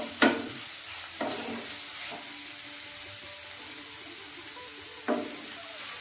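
Shredded cabbage, carrot and chicken frying in a non-stick pan with a steady sizzle, and a spatula stirring and scraping through it in a few strokes: the loudest just after the start, then at about one and two seconds, then a lull before another stroke near the end.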